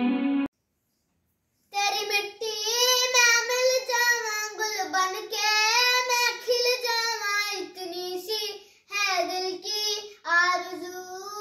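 A guitar-led instrumental tune cuts off half a second in. After about a second of silence, a young boy begins singing solo and unaccompanied, in phrases with short breaks between them.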